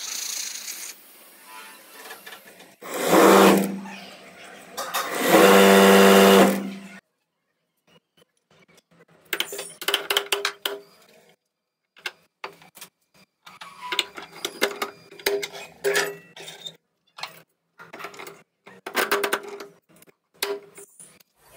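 An electric spin-dryer motor hums loudly twice in the first seven seconds, each time for a second or two. After a short gap come many sharp metallic clicks and knocks, some of them ringing, as motor parts are fitted together by hand on a press.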